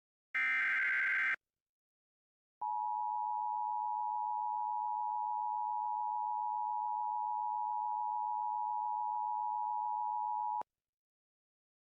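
Emergency Alert System activation: a short harsh digital burst of SAME header data, then after about a second of silence a steady attention tone near 1 kHz. The tone is held for about eight seconds and cuts off suddenly.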